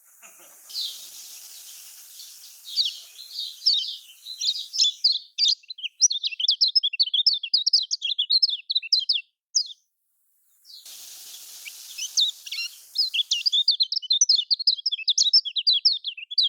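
Kecial kuning, a Lombok white-eye, singing a fast run of sharp, high chirping notes over faint hiss. The song stops for about a second near the middle and then starts again.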